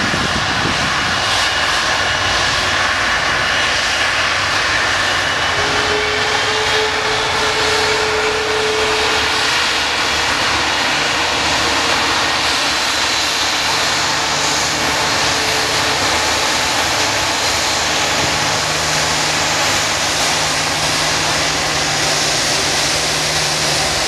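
Airbus A330-300's Rolls-Royce Trent 700 turbofans running at low power as the airliner moves slowly past at close range. The engine noise is steady with a high whine over it. A hum comes in about a third of the way through, and a lower hum grows in the second half.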